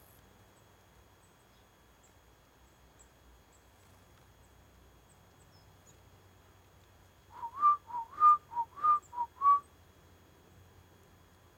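Whistling: a quick phrase of about eight short notes that alternate between a lower and a slightly higher pitch, each note sliding upward, starting about seven seconds in and lasting a little over two seconds.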